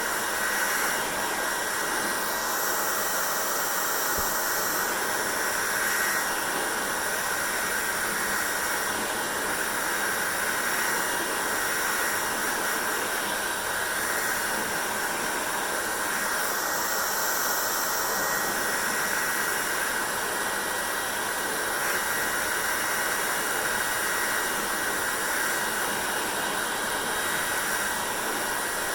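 Hair dryer blowing steadily, a continuous even rush of air with slight shifts in its hiss now and then.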